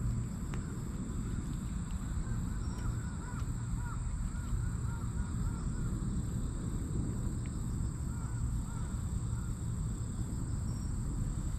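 A bird calling in two runs of short repeated notes, about two and a half seconds in and again about eight seconds in, over a steady low rumble.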